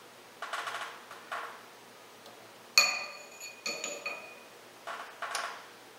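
A steel ring scrapes in short rough strokes along a press brake's flywheel shaft as it is worked off by hand. Two sharp metal clinks near the middle ring on briefly at several high pitches.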